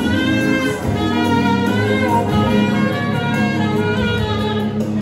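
Saxophone playing a smooth, jazzy melody over a steady low accompaniment.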